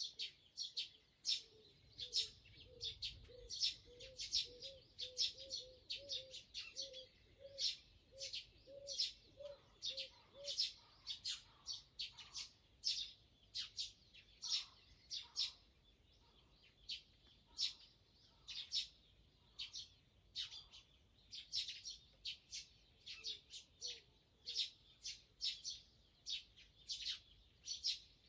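Northern boobook owls hooting in an even series of low 'hoo' notes, about two a second, for the first ten seconds and again briefly later, their calls trading off like a pair answering each other. Louder over them, another bird's short high chirps repeat two or three times a second throughout.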